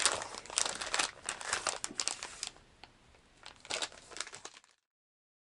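Plastic packs of soft plastic fishing baits crinkling as they are handled and shuffled, in irregular rustles and crackles that stop about a second before the end.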